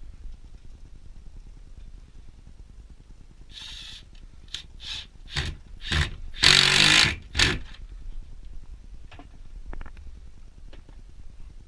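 Cordless drill-driver driving a screw through galvanised perforated strapping into a timber batten. It runs in several short bursts, then one longer, louder run, then a last short burst.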